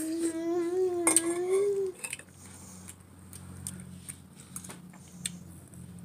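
A voice holds a hummed, slightly wavering note for about two seconds. Cutlery clinks against dishes, with one sharp clink about a second in and small scattered clicks of utensils on a plate afterwards.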